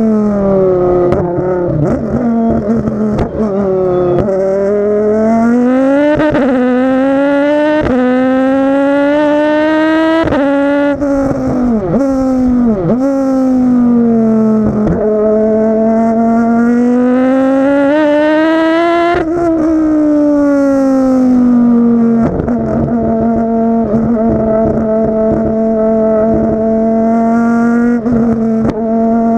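Volvo 850 BTCC race car's 2-litre naturally aspirated five-cylinder engine at speed on track. It revs up and changes gear through its sequential gearbox, with quick sharp drops in pitch in the first eleven seconds and a couple more dips soon after. It then makes a long pull that eases off at about nineteen seconds and settles into fairly steady revs.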